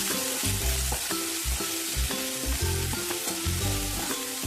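Onions and green peas frying in hot oil in a pan: a steady sizzle, with scattered clicks and scrapes of a spoon stirring.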